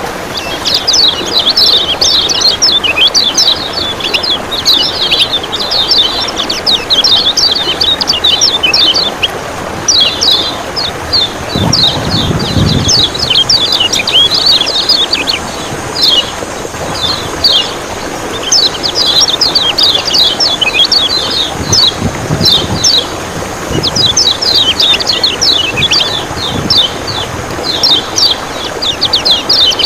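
Kecial kuning (Lombok white-eye) calling in rapid runs of sharp, high 'ciak ciak' chirps, with short breaks between runs, over a steady rush of running water. A few dull low thumps come around the middle.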